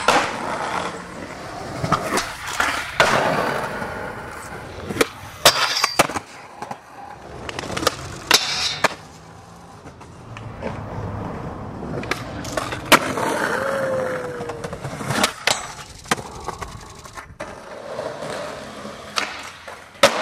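Skateboard wheels rolling, with several sharp clacks at irregular intervals from the board popping, hitting and landing.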